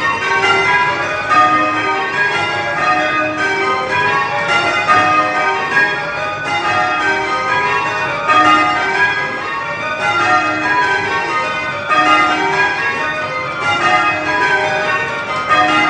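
A ring of eight church bells rung full circle in changes, here a touch of spliced methods: a continuous, even stream of overlapping bell strikes with no pauses.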